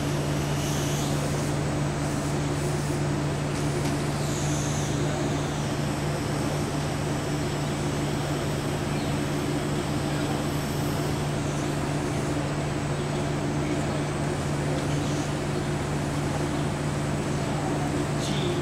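Steady low mechanical hum over an even background rush, unchanging throughout: the ambient drone of a large indoor arena.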